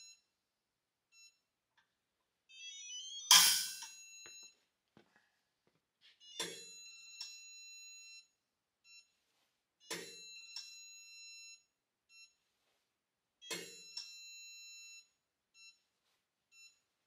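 Split-beam torque wrenches clicking as they break over at their set torque on a digital torque tester, four times about 3 seconds apart, the first click the loudest. Each click is followed by about a second of high electronic beeping from the tester.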